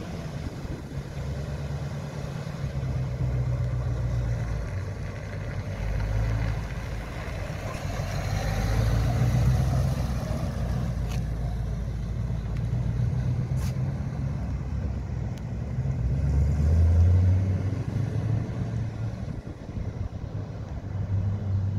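1951 Ford F-1 pickup's engine running at low speed as the truck drives past and away, growing louder as it passes about halfway through and swelling again briefly a few seconds later.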